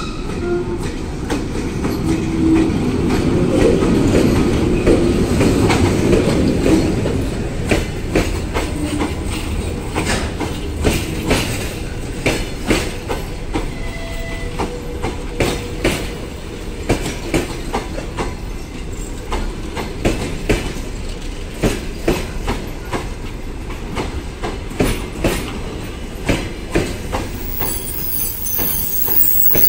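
EP1M electric locomotive passing close by, followed by a long train of passenger coaches rolling past as it pulls into the station, the wheels clicking over rail joints. The rumble is heaviest for the first several seconds as the locomotive goes by; a thin high squeal joins near the end.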